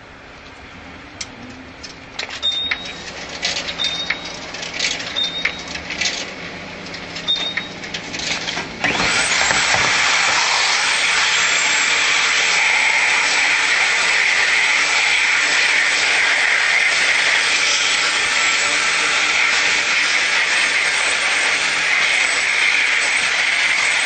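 Commercial vacuum cleaner: a few seconds of knocks and clicks with short high squeaks, then about nine seconds in the motor comes on with a sudden jump to a loud, steady rushing hiss.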